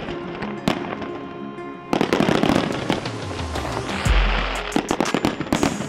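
Fireworks going off: ground fountains hissing and rockets launching with rapid crackles and pops, getting louder and denser about two seconds in.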